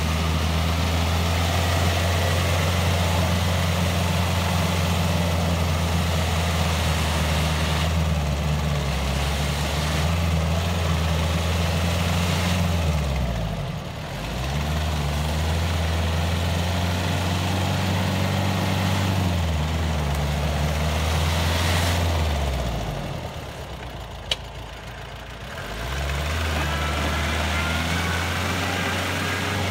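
Jeep Cherokee XJ's 2.5-litre VM Motori turbo-diesel engine running steadily under load as it drives through mud. The revs drop off and pick up again briefly about halfway through, and again for a few seconds near the end, with a single click during the second lull.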